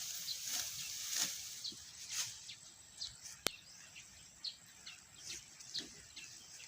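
Birds chirping in short, scattered high calls, over a faint hiss that fades after the first two seconds, with one sharp click about three and a half seconds in.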